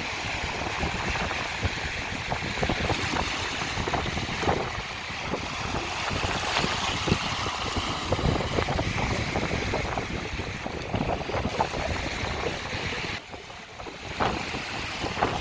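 Sea waves washing onto a beach, with wind buffeting the microphone. The sound dips briefly about two seconds before the end.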